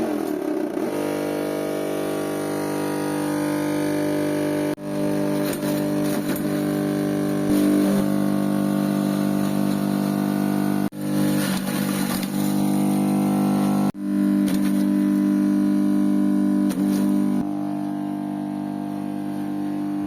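Grass chopper machine's motor running steadily at constant speed, with a few brief breaks where the sound cuts out and comes straight back.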